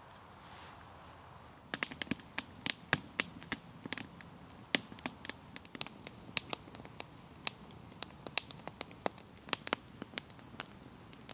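Wood fire crackling, with irregular sharp snaps and pops starting about two seconds in and running on at a few a second.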